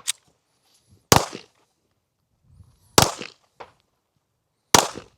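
Three gunshots at a shooting range, spaced roughly two seconds apart, each followed by a short echo.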